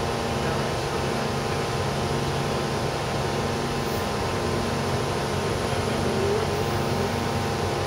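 A steady mechanical drone: a hum of several even tones over a constant hiss, with no knocks or shots.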